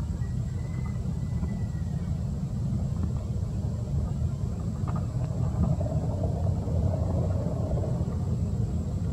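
Steady low outdoor rumble, with a faint thin high tone for the first couple of seconds.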